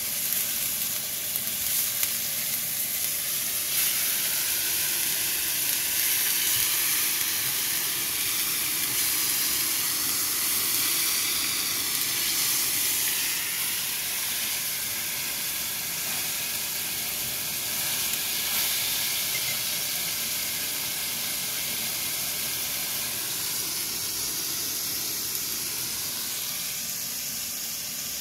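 Tomato slices sizzling steadily as they fry in a pan.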